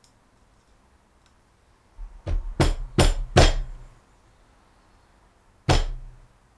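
Hammer tapping a screw set against the trigger pin of a pressure-washer gun to start driving the pin out: four quick sharp metal taps about two seconds in, then one more near the end.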